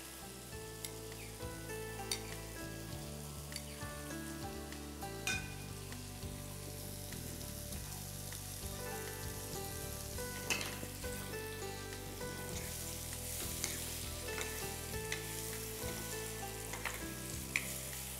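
Cubes of papaya frying in oil in a wok, sizzling steadily, with a scattering of sharp clicks and scrapes from utensils as the pan is stirred.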